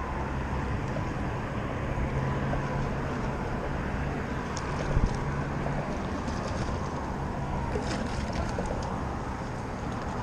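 Steady low engine hum over a broad rumble, the hum fading out about six seconds in, with a single short thump about five seconds in.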